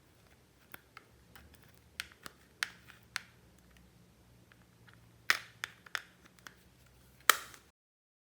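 Slime being worked by hand, giving off irregular sticky pops and clicks, the loudest about five and seven seconds in. The sound cuts off abruptly near the end.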